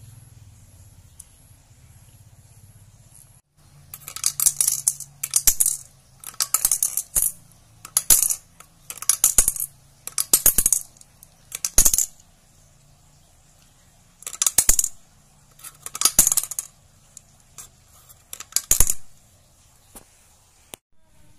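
Small pebbles clinking and rattling against the glass of a light-bulb mini aquarium. They come in about ten short bursts of sharp clicks, with a pause in the middle.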